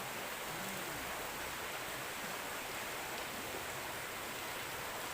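Steady rush of a shallow river flowing over stones, an even hiss with no breaks.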